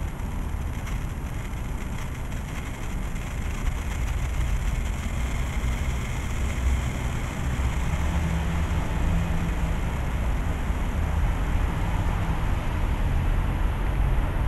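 Steady low rumble of nearby city road traffic, with an engine hum that grows a little louder partway through.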